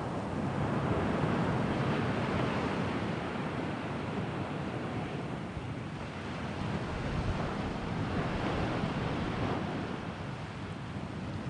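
Sea waves surging and washing, in slow swells that rise and ease, with some wind on the microphone.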